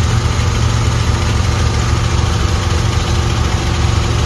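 An engine idling steadily, its sound low and even with no change in speed.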